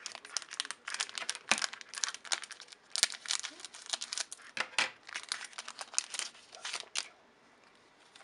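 Foil trading-card booster pack crinkling in the hands as it is cut open across the top with scissors, with a sharp click about three seconds in. The crackling stops about seven seconds in.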